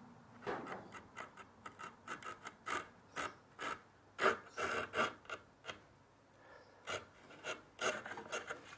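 Wood chisel paring a small lead-in groove on the waste side of a knife-cut line, so the saw has a shoulder to start against: a run of short, irregular scraping strokes, with a brief pause about six seconds in.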